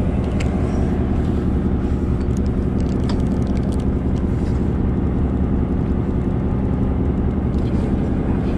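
Steady low drone of the fishing boat's engine running at a constant pitch, with a few faint clicks.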